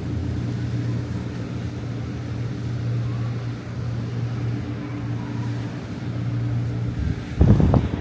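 A steady, low engine drone. About seven and a half seconds in, a short loud buffet of wind hits the microphone.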